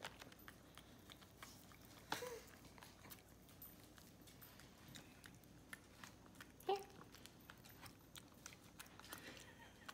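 Capuchin monkey chewing chicken: faint, scattered clicks of eating. A short vocal sound comes about two seconds in, and a louder one near seven seconds.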